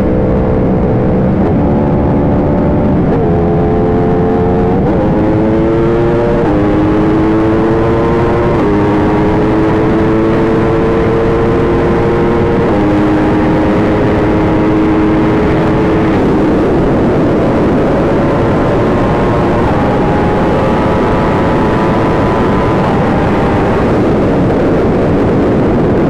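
Yamaha R1 inline-four sport bike engine running hard at speed, its note holding for a few seconds at a time and then stepping to a new pitch as it changes gear, under heavy wind rush on the microphone.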